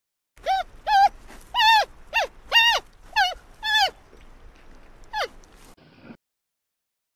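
An animal's high-pitched cries: seven short calls in quick succession, each rising and then falling in pitch, then one more call about a second later.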